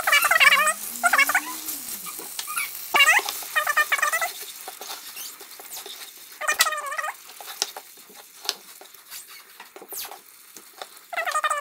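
A spatula stirring and tapping in a pan of thick curry, giving scattered small clicks, under about seven short, high, wavering squeaks that come in clusters and are the loudest sound.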